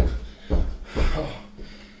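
Heavy breathing with dull thumps about twice a second, which fade out a little after a second in.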